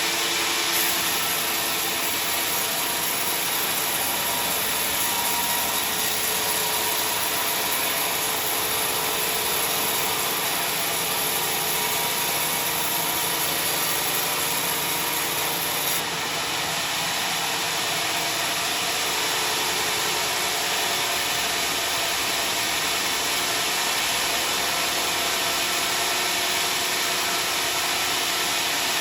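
Sawmill saw running steadily through a large log: a continuous hiss of cutting over the machine's running hum, with an abrupt change in the sound about halfway through.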